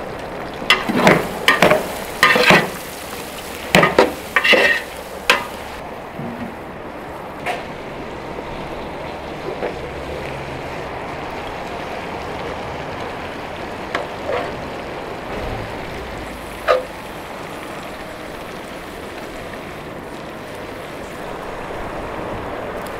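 Metal utensils clinking and scraping against large aluminium cooking pots, a quick run of strokes in the first few seconds and a few single clinks later. Under them, a steady hiss from a big pot of lamb boiling over a wood fire.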